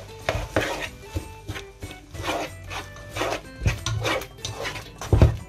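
A slotted spoon stirring and scraping chopped onion and garlic through melting butter in a pot, in quick repeated strokes about three a second, the heaviest near the end.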